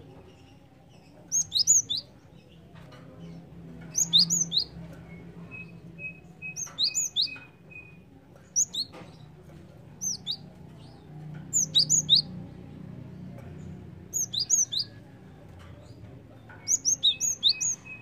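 Cinereous tit (gelatik batu) singing: short bursts of two to five sharp, high whistled notes, repeated about every two seconds.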